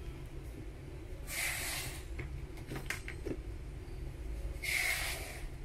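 Parts of a disassembled Total 850 W impact drill being handled: a few light clicks and knocks of plastic and metal parts, and two short hissing sounds about three seconds apart, over a low steady hum.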